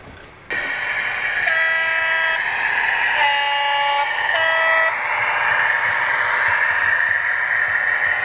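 Sound-fitted model diesel locomotive: its engine sound comes in suddenly about half a second in and runs steadily, and its horn sounds three short blasts, the middle one lower in pitch.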